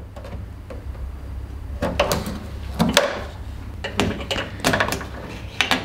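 Several short plastic clicks and rubbing knocks as the number-plate-light wiring's small plastic retaining clip is pulled out of the boot hinge and the cable and connector are handled, over a low steady rumble.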